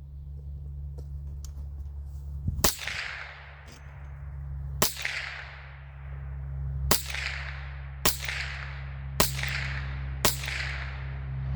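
Six shots from an RIA TM22 semi-automatic .22 LR rifle, fired one at a time at irregular spacing of one to two seconds. Each is a sharp crack with an echo that dies away over about a second, over a steady low rumble.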